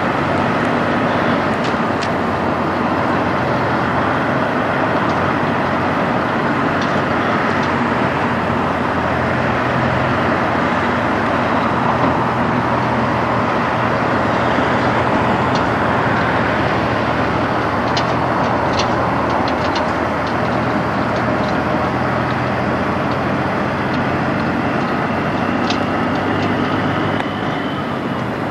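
Peterbilt semi truck's diesel engine running at a low, steady pace as the tractor-trailer rolls slowly, with a constant low hum. A few sharp ticks come about two-thirds of the way through.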